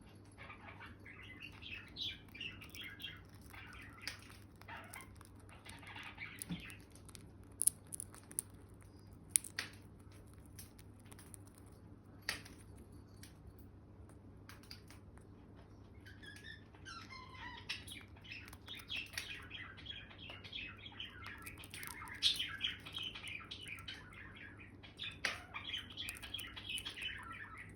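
Indian ringneck parakeet chattering softly in quick twittering chirps, in two long spells with a quieter stretch between them. A few sharp clicks stand out in that quiet middle stretch.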